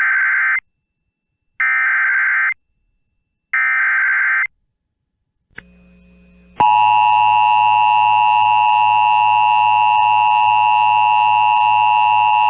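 NOAA Weather Radio Emergency Alert System (SAME) header: three bursts of digital data tones, each about a second long, opening a severe thunderstorm warning alert. After a click and a faint hum, the weather radio's 1050 Hz warning alarm tone starts about six and a half seconds in, a loud steady tone over a low hum.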